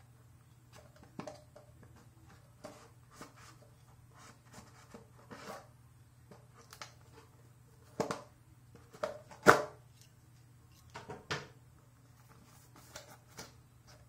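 A knife cutting the tape on a small cardboard box and the box being handled: scattered scrapes and soft taps, with a few louder knocks past the middle, the loudest a sharp knock about halfway through. A faint steady low hum runs underneath.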